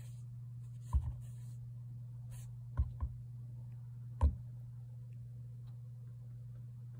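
A chinchilla's fur brushing against the phone in brief scratchy rustles, with four soft thumps as it bumps the phone, over a steady low hum.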